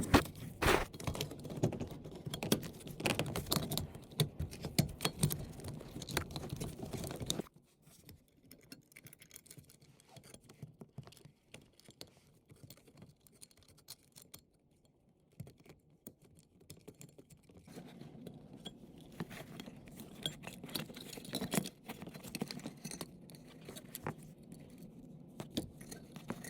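Close handling noise of hands working in a tight space: irregular scraping, rubbing and small clicks. It stops suddenly about seven seconds in, there is near silence for about ten seconds, and then quieter scraping and clicks resume.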